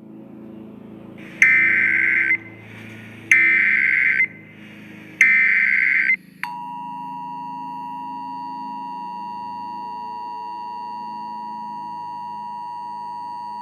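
Emergency Alert System broadcast tones: three bursts of SAME digital header data, each about a second long, then the steady two-tone EAS attention signal starting about six seconds in. A faint low drone runs underneath.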